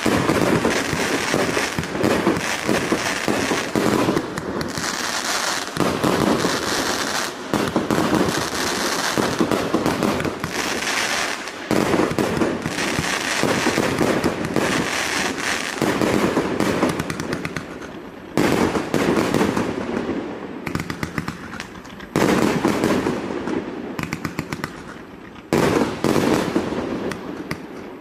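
A 188-shot fireworks cake firing shot after shot without a pause, a dense run of launches and aerial bursts. The volleys come in louder waves that start suddenly every few seconds.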